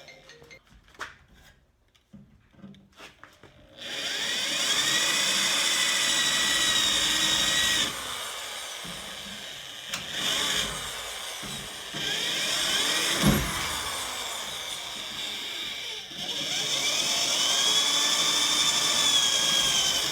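Electric drill turning a spot weld cutter, boring out spot welds in car body sheet metal. It runs three times, each run spinning up with a rising whine and then holding steady: about four seconds in, near the middle, and toward the end. A few light clicks come before the first run.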